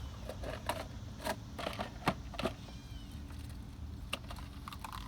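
Scattered light clicks and taps, about a dozen, over a low steady hum, with a faint short squeak about halfway through.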